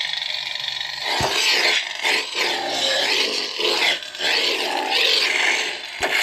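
Lightsaber sound font from a Kylo Ren-style saber's Proffieboard, played through its 28mm bass speaker. A rough, crackling unstable hum gives way about a second in, after a sharp click, to loud whooshes that swell and fade about once a second, with another click near the end.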